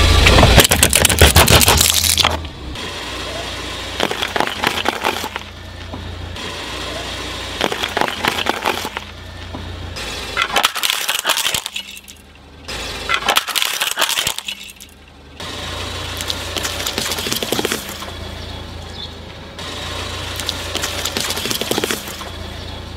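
A car tyre rolling over and crushing objects in a run of short clips that cut from one to the next. It is loudest in the first two seconds, as a plastic bottle is burst under the wheel. Later come cracking and crunching as ceramic plates shatter, then wet squashing of soft food near the end.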